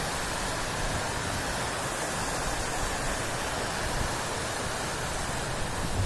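Fast-flowing stream rushing over rocks: a steady, even roar of white water.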